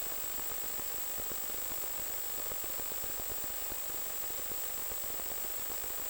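Steady hiss and fine crackling static with a constant high-pitched whine: the noisy audio channel of an analog FPV video link, its signal weak with the plane about 4 km out.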